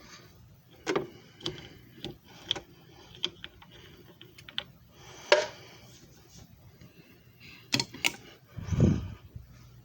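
Scattered sharp clicks and knocks of handling, the loudest about five seconds in, followed near the end by two quick clicks and a low thump, over a faint low hum.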